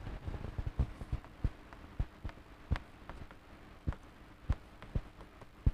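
Chalk writing on a blackboard: a string of sharp, irregular taps, roughly two a second, as the letters are stroked on, over a faint steady hum.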